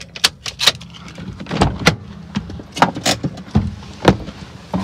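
A series of sharp clicks and knocks from handling things inside a parked car's cabin, over a low steady hum.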